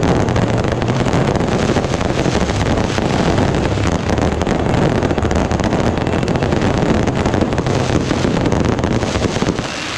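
Fireworks barrage: aerial shells and comets bursting overhead in dense, rapid succession, a continuous stream of bangs and crackle without a break.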